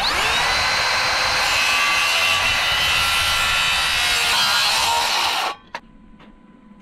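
Makita dual-battery cordless circular saw spinning up and cutting through an engineered-wood fascia board, loud and steady, then stopping abruptly about five and a half seconds in, with a short click just after.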